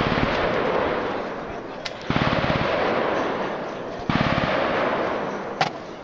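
Submachine gun firing on full auto: three bursts of about a second each, roughly two seconds apart, each trailing off in an echo.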